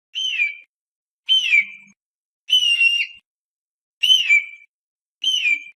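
Hawk crying: five short, high screams, each sliding down in pitch, spaced a little over a second apart.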